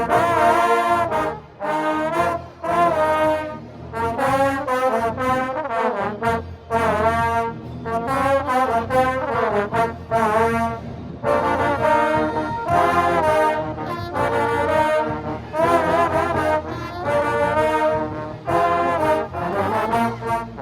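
A section of trombones playing a brass tune together, phrase after phrase of sustained notes with vibrato and short breaks between phrases.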